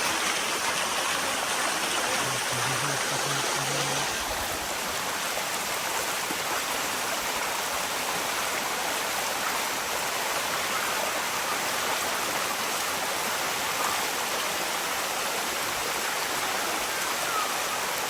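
Steady rush of water cascading over the rocks of a waterfall.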